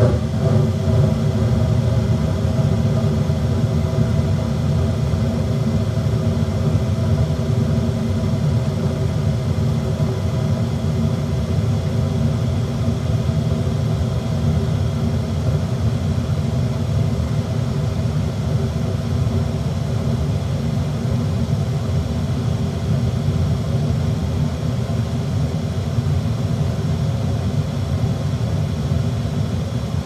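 Gas furnace firing: a steady low roar that comes up suddenly at the very start and then holds, with a faint steady hum above it.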